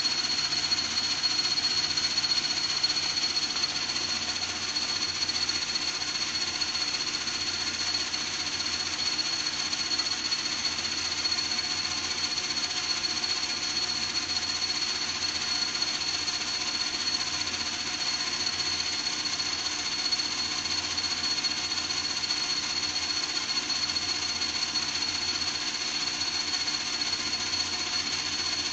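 A machine running steadily with a constant high-pitched whine and a noisy hiss, unchanged throughout.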